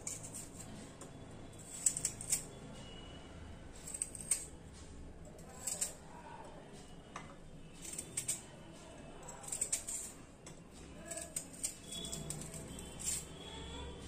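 Small kitchen knife cutting crisp amla (Indian gooseberry) flesh away from the stone, giving irregular short sharp clicks every second or two.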